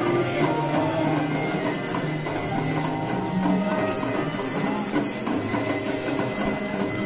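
Brass aarti bells ringing steadily without a break, over a busy mix of other sound from the ceremony and crowd.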